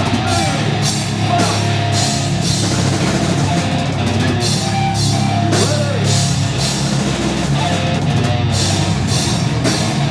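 Live heavy metal band playing: distorted guitars and bass holding low, sustained notes under a drum kit, with cymbal hits on a steady beat and a few short sliding notes that glide up and down in pitch.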